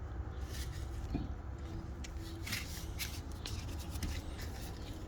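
Faint scraping and clicking of metal brake parts being handled as a rear brake caliper is fitted back over the new pads, many small irregular taps and rubs over a steady low rumble.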